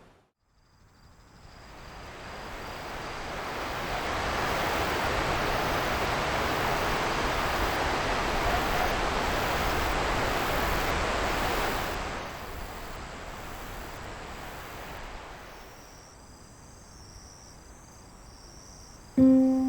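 A rushing noise, typical of a vehicle passing by, that swells over a few seconds, holds, and then fades away. Faint steady high-pitched insect trilling runs through it, and music comes in near the end.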